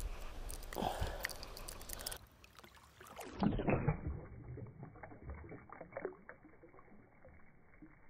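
Water splashing and sloshing as a smallmouth bass is lowered back into shallow creek water by hand, loudest about three and a half seconds in, then a few smaller sloshes. The sound turns muffled at the splash, as if heard from just under the water surface.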